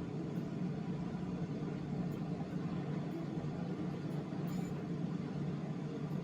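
Steady low mechanical hum with a few faint, light clicks over it.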